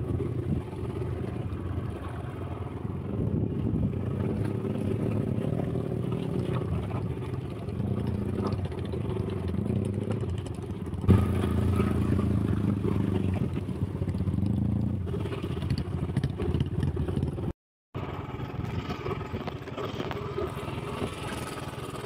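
Motorcycle engine running as the bike is ridden, a steady drone that gets louder about halfway through. The sound cuts out completely for a moment about three-quarters of the way in.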